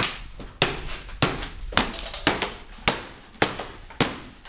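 Sharp knocks or bangs repeating at an even pace, a little under twice a second, about seven in all, each ringing briefly before the next.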